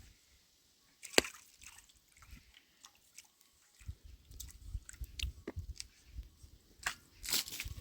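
Scattered clicks and knocks, the sharpest a single crack about a second in, with a denser burst of crackling near the end.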